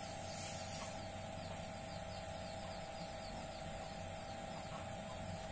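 Steady background hum, with a faint high ticking repeating a few times a second and a brief soft hiss or rustle in the first second.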